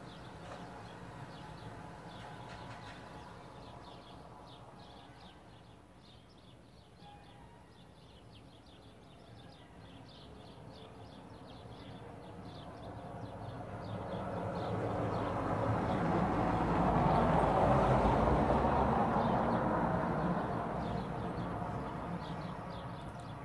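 A vehicle passes by. Its noise swells over several seconds, is loudest about three-quarters of the way through, then fades away, with faint bird chirps throughout.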